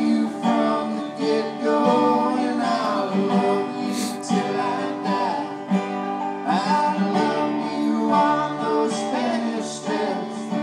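Acoustic folk string band playing live: banjo and acoustic guitars picking and strumming a tune, with a sliding melody line running over the chords.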